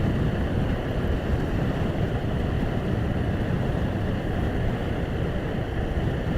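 Steady wind rush on the microphone of a motorcycle riding along at speed, mixed with the bike's running noise.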